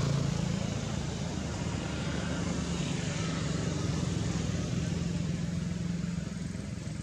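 A motor vehicle's engine running, heard as a steady low drone that fades out about six seconds in.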